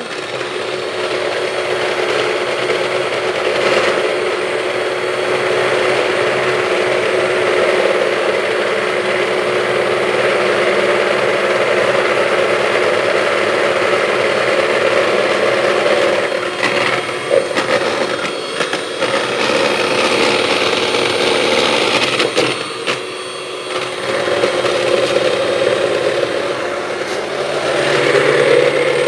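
Electric hand mixer running steadily with its twin beaters whisking a thin yellow mixture in a bowl. The motor sound falls off briefly about two-thirds of the way through, then comes back.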